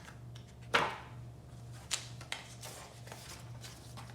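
Book being handled: a short paper rustle about a second in, then a couple of light taps, over a faint low steady hum.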